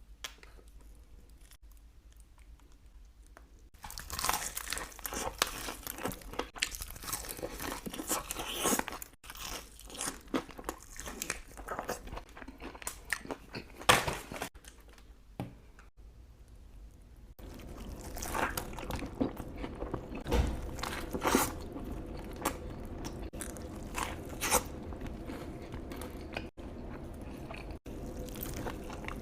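Close-miked eating sounds: crisp crunching bites and chewing of crunchy fried food, KFC. The first few seconds are nearly quiet. About 17 seconds in the background changes, and the chewing goes on over a steady low hum.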